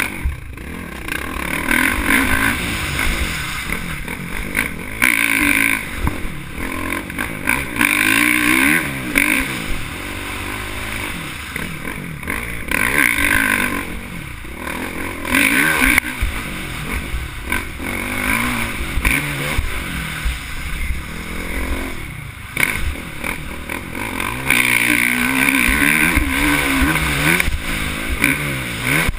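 Dirt bike engine revving up and down over and over, its pitch rising and falling in uneven surges as it is ridden hard along a trail.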